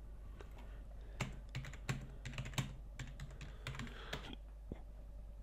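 Typing on a computer keyboard: an irregular run of key clicks that starts about a second in and stops a little after four seconds.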